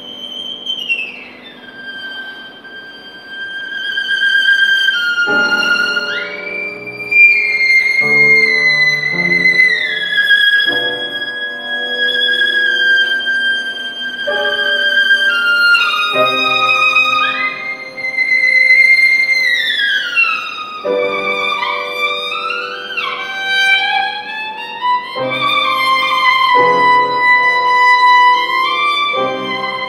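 Solo violin playing a slow, lyrical melody in its high range, with frequent slides between notes, over lower sustained chords.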